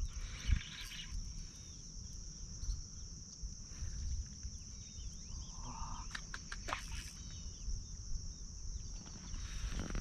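Steady high-pitched buzzing of insects such as crickets, with a few short bird chirps around the middle and a low rumble beneath.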